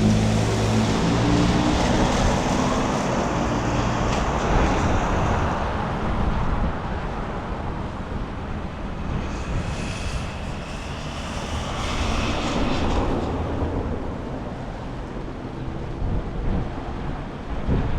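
Strong storm wind blowing, with vehicle traffic passing; the hum of a vehicle engine fades out in the first couple of seconds.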